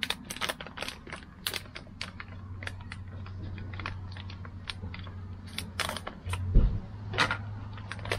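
A seasoning packet being cut open with a folding pocketknife and handled: a quick string of small clicks, crinkles and rustles. A low steady hum runs underneath, and there is one louder thump about two-thirds of the way through.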